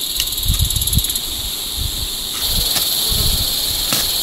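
Insects trilling steadily at a high pitch, over irregular low rumbling thumps.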